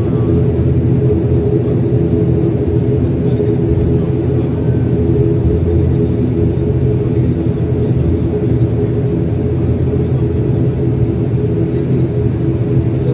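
ATR 72 turboprop engine and propeller running steadily, heard from inside the passenger cabin: a loud, even drone made of several low steady tones.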